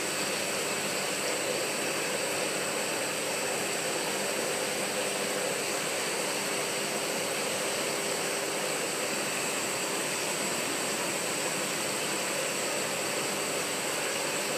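Steady rushing noise with a faint steady hum, from the pumps, aeration and running water of the aquarium tanks.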